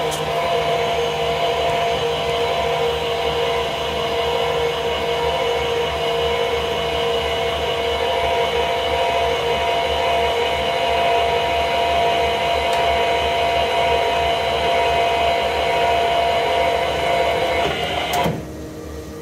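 NordicTrack treadmill incline motor running steadily, turning the elevation lead screw in its new cast-iron nut as the deck lowers back to zero. The whine holds even, then cuts off about eighteen seconds in as the incline reaches bottom.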